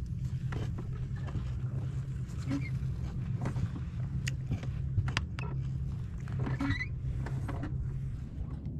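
A fork clicking and scraping against a plastic salad container, with chewing, as a series of short irregular clicks. Under it a steady low wind rumble on the microphone.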